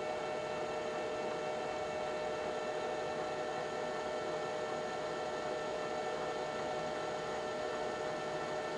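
Manual metal lathe running at speed, a steady hum with several constant tones, while a center drill in the tailstock is fed into the end of the spinning steel shaft.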